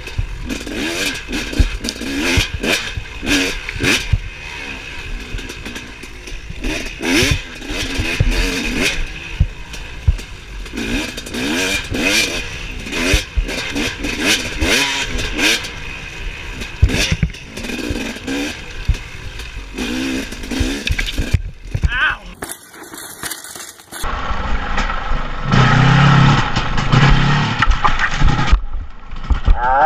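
Two-stroke dirt bike engine revving up and down under riding, its note rising and falling with each burst of throttle, with knocks and clatter from the rough ground. About six seconds before the end the engine note becomes steadier.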